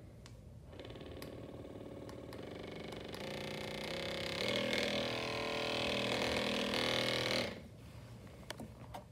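FitRx Pro percussion massage gun's motor switched on and running with a steady hum. It steps up in pitch and loudness several times as the speed button is pressed through its settings, then is switched off suddenly about seven and a half seconds in.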